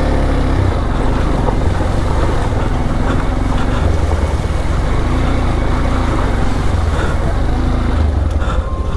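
Motorcycle engine running steadily while riding off-road, with a heavy low rumble.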